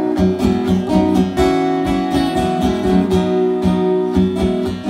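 Acoustic guitar strummed in a steady rhythm, played live as a solo instrumental passage.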